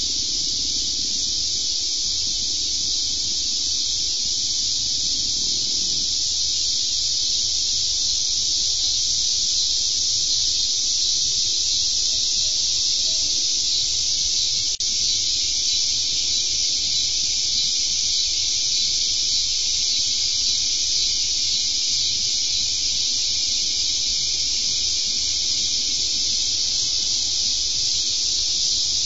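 Steady high-pitched insect chorus, an even shrill hiss that does not let up, with one brief click about halfway through.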